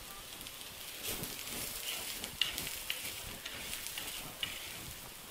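Chicken pakoda sizzling in hot oil in a clay pot as it is stirred with a wooden spatula, which scrapes and taps against the pot a few times.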